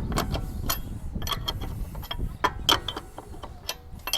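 Lug nuts being spun off a wheel with a hand lug wrench: irregular metallic clicks and clinks of the wrench on the nuts and studs.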